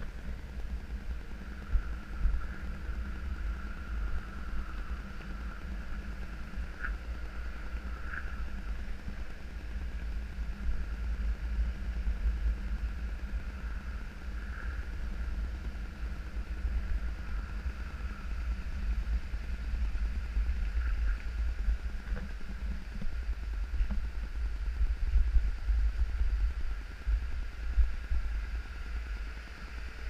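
Wind buffeting the microphone of a moving camera: an uneven low rumble throughout, with a faint steady hiss above it.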